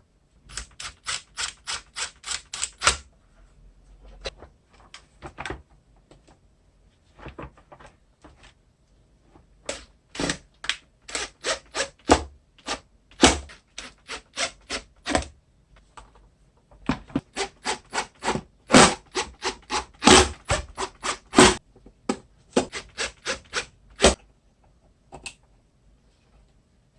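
Runs of sharp mechanical clicks, several a second, in bursts of a few seconds with short pauses, from hand-tool work on the disassembled vacuum cleaner's motor.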